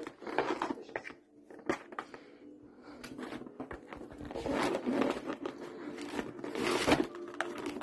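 A cat nosing into a cardboard takeaway food box and its packaging: irregular rustling, crinkling and scraping with a few sharp clicks, loudest near the end.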